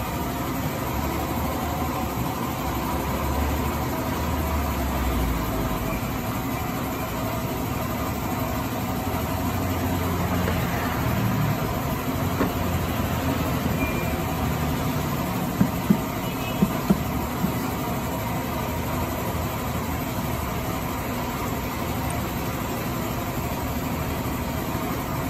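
Steady mechanical background rumble and hum, with a handful of sharp metallic clicks about two-thirds of the way through as the scooter's belt-drive cover and its bolts are handled.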